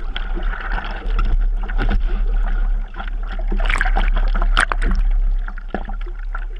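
A surfer's hands paddling through seawater, with water splashing and washing over the surfboard right at the microphone, over a steady low rumble. A couple of sharper splashes come a little past the middle.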